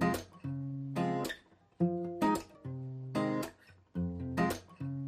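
Outro music: strummed acoustic guitar chords with a steady rhythm.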